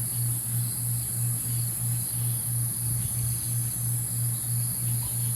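Insects chirring steadily in a nature ambience sound effect, with a low tone pulsing evenly about three times a second beneath it.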